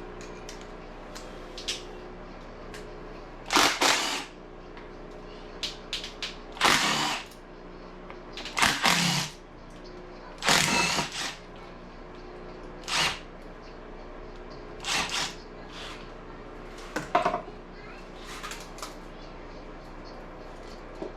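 Cordless power tool run in about seven short bursts, one to two seconds apart, spinning bolts out during an engine teardown.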